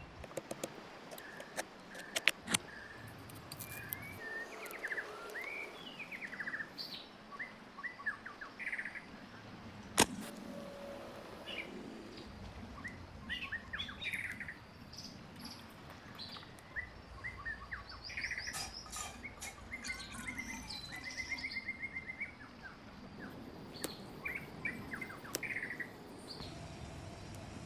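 Wild birds chirping and singing throughout, many short calls and trills. A few sharp clicks or knocks stand out over them, the loudest about two seconds in and about ten seconds in.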